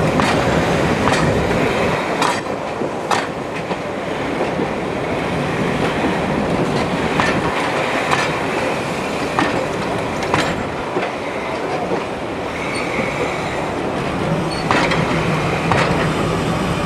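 Passenger coaches rolling slowly past at close range, the wheels knocking and clicking irregularly over rail joints, with a light wheel squeal at times.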